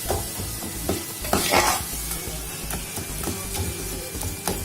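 Chicken, onion and tomato masala sizzling in a pot over a low flame as it is stirred, the spoon scraping the pot now and then, most strongly about a second and a half in.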